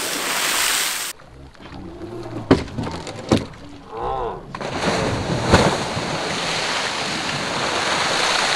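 A hooked shark thrashing at the sea surface, throwing up heavy splashing water. The splashing comes in two stretches, with a quieter gap in the middle that holds a few sharp knocks and a brief voice.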